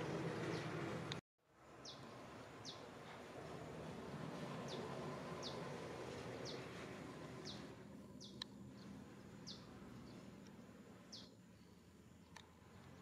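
A bird calling: short, high chirps that fall in pitch, repeated every second or so over a steady outdoor background hiss. The sound drops out completely for a moment about a second in.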